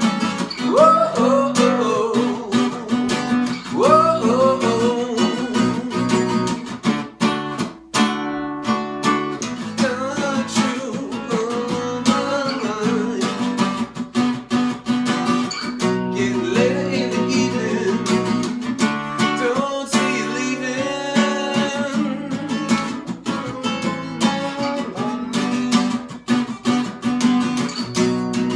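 Acoustic guitar being strummed and picked through a song, with a man's wordless vocal runs over it in the first few seconds and again around the middle.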